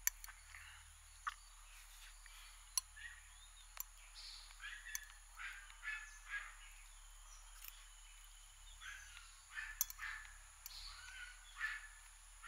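A metal fork clinks sharply against a ceramic plate a few times while food is eaten from it. From about four seconds in, birds chirp in short calls.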